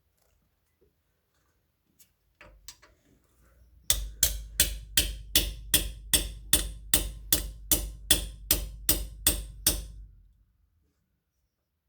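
Hammer blows on the end of a socket extension bar: a couple of light taps, then a steady run of about sixteen sharp strikes, some three a second, for about six seconds. The bar is packing bread into the spigot bearing bore to force the bearing out of the crankshaft end hydraulically.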